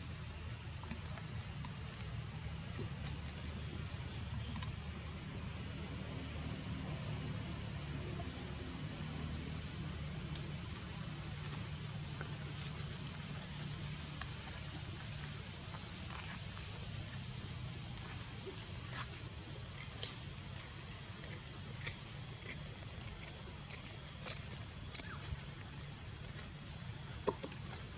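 Steady, high-pitched drone of forest insects: a single shrill tone that creeps slightly upward in pitch, over a low rumble. A few faint clicks come in the second half.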